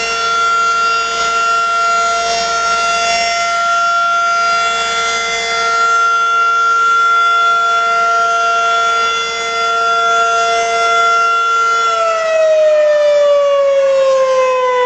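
Federal Signal 2001 outdoor warning siren sounding a steady two-tone chord for its monthly test. About three seconds before the end it starts to wind down, its pitch falling steadily.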